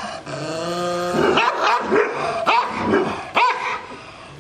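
Rottweiler growling with its teeth bared, then barking about six times in quick succession, an aggressive warning from a dog straining on its leash. The sound drops away near the end.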